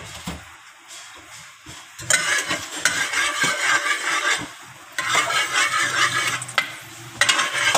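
A metal spoon stirring whole garam masala spices in hot oil in an aluminium pot, scraping and clinking against the pot while the oil sizzles. A sharp knock comes at the very start, then the stirring goes in two bursts, about two seconds in and again about five seconds in.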